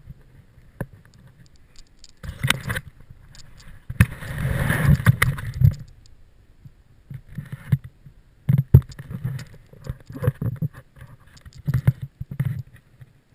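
Handling noise on a small action camera as it is picked up, turned round and set back down: rubbing and rustling, with a longer loud stretch about four seconds in. Several sharp knocks and clicks follow in the second half.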